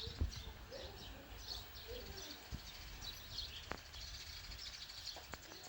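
Small birds chirping, many short high chirps, with a few faint clicks and a low rumble underneath.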